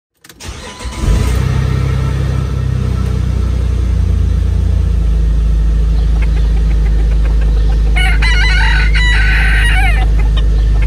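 A vehicle engine running with a steady low rumble, and a rooster crowing once, about eight seconds in, lasting over a second.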